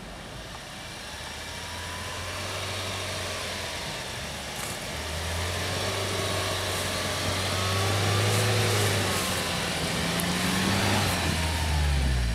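UAZ Patriot engine pulling hard in deep snow, a steady low drone that grows louder as the SUV approaches, with the engine note shifting near the end as it bogs down.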